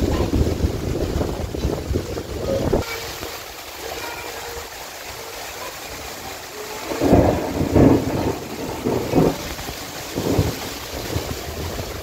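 Rainstorm: the steady hiss of heavy rain, with wind buffeting the microphone for the first few seconds until it cuts off suddenly. Low rumbling swells rise twice in the latter half.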